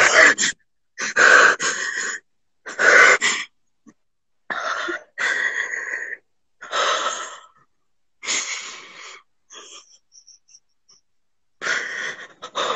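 A person crying in wheezing, gasping breaths, about eight sobbing breaths in a row with short gaps between them, too overwhelmed to speak.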